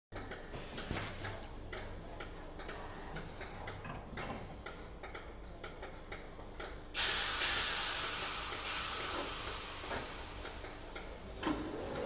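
Merseyrail electric train's sliding passenger doors shutting, with a sharp click about a second in and light irregular clicking. About seven seconds in comes a sudden loud hiss of released compressed air that slowly fades, and a thump near the end.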